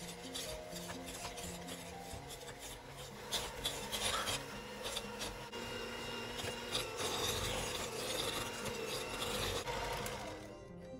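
Electric hand mixer running, its wire beaters churning and scraping through thick cookie dough of creamed butter, sugar and egg, with a rasping, clicking texture.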